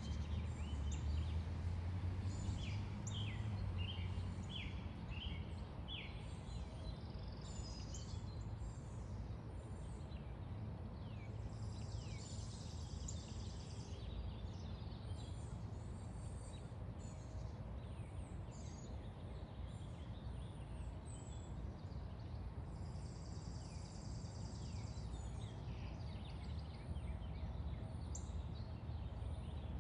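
Outdoor ambience: small birds chirping and calling in short, high notes throughout, over a steady low rumble. Twice, for about two seconds each, a high buzzing trill joins in.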